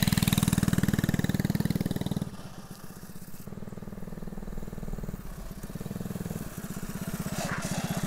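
Mini bike's small single-cylinder engine running with a steady, even firing beat. It is loud at first, drops off suddenly about two seconds in, and grows louder again near the end.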